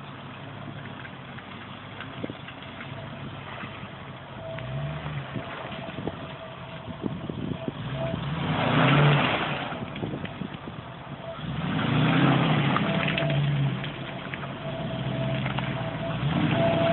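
Lifted classic Range Rover 4x4 revving through mud, the engine note rising and falling in several surges. The two loudest surges come about halfway and about three quarters of the way through, each with a noisy rush over the engine.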